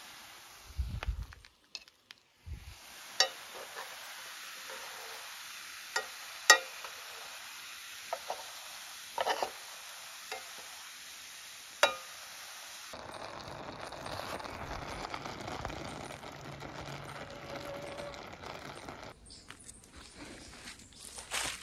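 Fish and vegetables sizzling in a metal pot on a portable gas stove, with a metal spoon clinking sharply against the pot about six times as they are stirred. About halfway through, the sound turns to a steadier simmer once liquid is in the pot.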